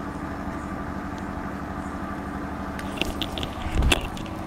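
Small Mercury ground-spinner firework (chakri) catching light: a few faint crackles, then a short, loud burst of sparking near the end, over a steady low background hum.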